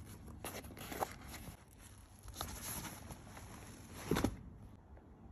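Rustling and handling noise as a nylon backpack is moved about, in a few irregular bursts, with a louder bump about four seconds in.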